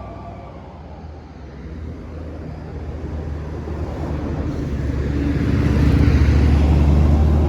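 Large bus's diesel engine pulling uphill, growing louder as it approaches and passes close, loudest about six seconds in, with tyre and wind noise rising alongside.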